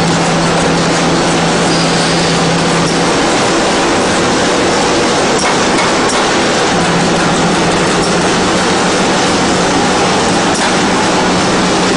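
Automatic cartoning machine running: a steady mechanical clatter of moving parts with faint regular ticking. A low hum runs under it, drops out about three seconds in and returns about seven seconds in.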